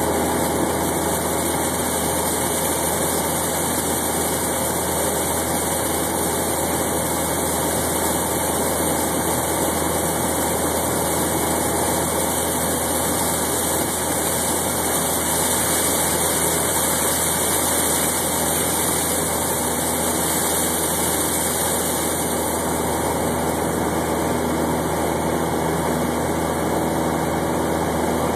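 Cessna 172's piston engine and propeller droning steadily, heard from inside the cabin, with a constant hiss over it and no change in pitch.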